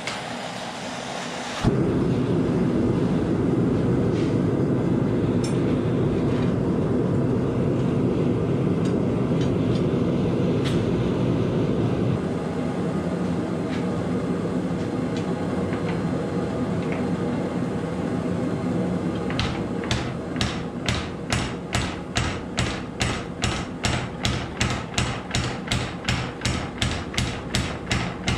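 A gas forge lights with a sudden loud rush about two seconds in and keeps running as a steady low rush. In the last third, a mechanical power hammer pounds a red-hot steel bar in an even run of strikes, about three a second.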